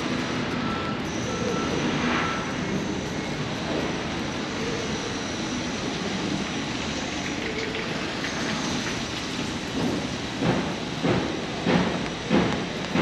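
Steady hiss of a rain-wet city street, with evenly paced footsteps on wet pavement, a little under two a second, starting about ten seconds in.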